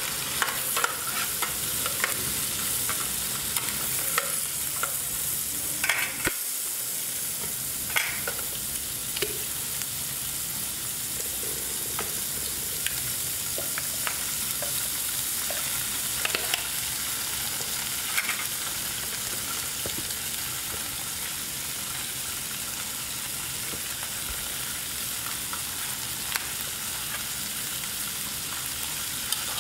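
Egg and sliced green vegetables sizzling in oil in a frying pan, with a spatula stirring and knocking against the pan; the knocks come most often in the first several seconds and only now and then after that, over a steady sizzle.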